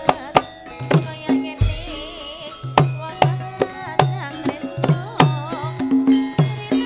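Javanese gamelan music. A kendang hand drum is struck a couple of times a second over held metallophone tones, with a singer's wavering melodic line above.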